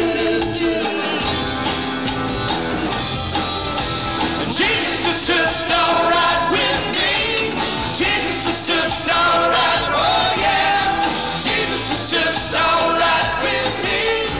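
Live band playing an upbeat rock song, with a lead singer and backing vocals over acoustic guitar, electric guitar, keyboard and drums.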